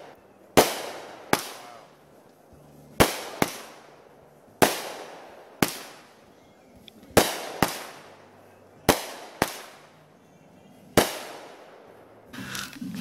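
Aerial fireworks bursting overhead: about a dozen sharp bangs at uneven intervals, several coming in quick pairs, each trailing off in a long echo.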